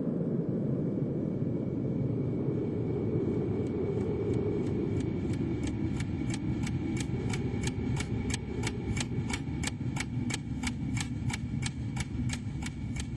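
A clock ticking at about three ticks a second fades in about four seconds in and grows louder, over a steady low rumble.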